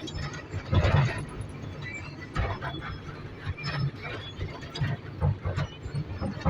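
Hitachi 240 excavator at work: its diesel engine running under irregular metallic clanks and short squeals from the machine's moving steel parts. The loudest clank comes about a second in.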